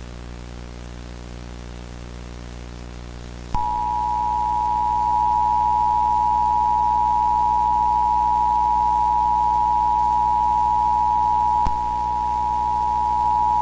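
A faint low buzzing hum, then about three and a half seconds in the Emergency Alert System attention signal starts with a click: a steady two-tone alarm of 853 and 960 Hz sounded together. It dips slightly with a faint click near the end. This tone announces that an emergency alert follows.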